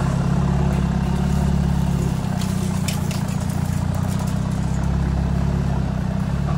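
Toyota Hilux Surf 4x4's engine running steadily at low revs while the vehicle drives off-road, with a few light clicks partway through.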